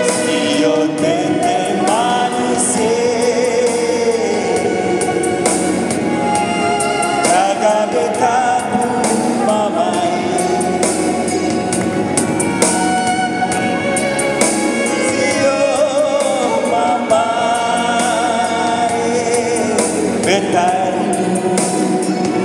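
A man and a woman singing a duet into handheld microphones, amplified over backing music with a steady beat.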